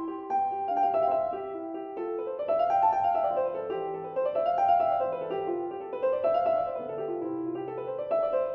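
Background piano music: runs of notes rising and falling in repeated waves over held low notes.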